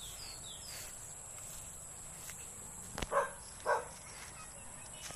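Outdoor rural ambience: a steady high insect drone, a few short falling bird chirps in the first second, a sharp click about three seconds in, then a dog barking twice, with one more bark at the very end.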